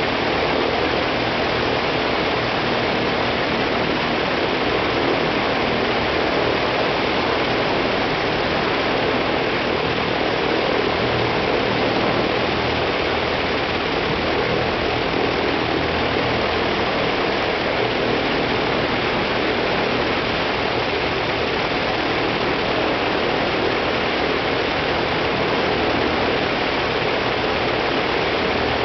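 Ilyushin Il-14T's left engine, a Shvetsov ASh-82T fourteen-cylinder twin-row radial, running steadily on a ground run with its propeller turning: a steady low engine rumble under a dense rush of propeller noise, holding one level throughout.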